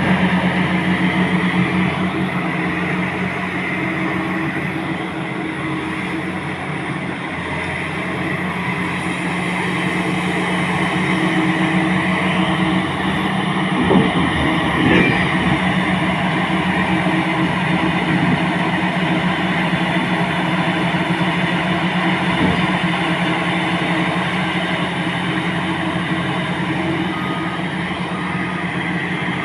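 Heavy mining excavator's diesel engine running at a steady drone throughout, with two short knocks about halfway through.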